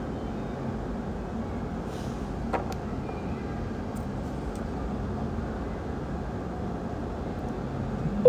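Steady low background rumble and hum, with a single faint click about two and a half seconds in.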